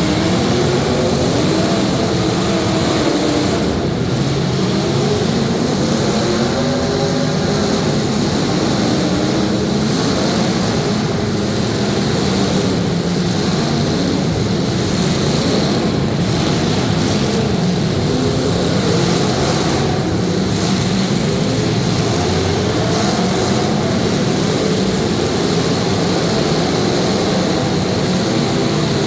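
Several demolition derby cars' engines revving at once, their pitches rising and falling over each other in a dense, continuous engine din.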